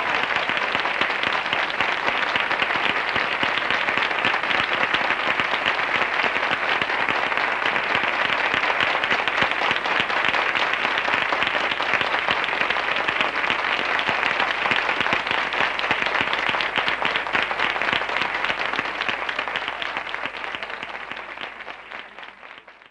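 Concert audience applauding steadily, a dense crowd of clapping hands that fades out near the end.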